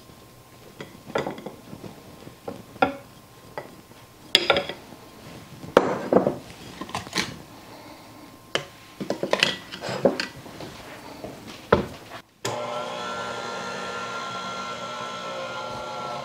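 A plastic spatula knocks and scrapes flour out of a measuring cup over a stand mixer's steel bowl in a string of irregular taps. About twelve seconds in, a KitchenAid tilt-head stand mixer's motor starts running at a steady pitch, its flat beater mixing stiff cookie dough.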